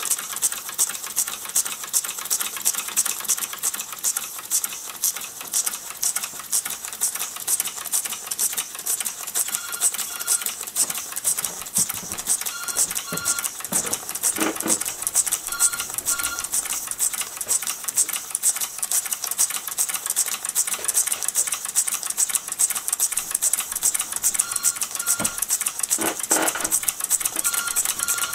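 Mamod SP7 twin sleeve-valve model steam engine running fast, a rapid, even ticking clatter of its exhaust beats and moving parts. A telephone rings in the background several times, in paired rings about three seconds apart.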